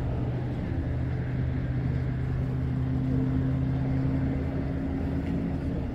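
A motor vehicle's engine running with a steady low hum that stops a little before the end, over a constant low road rumble.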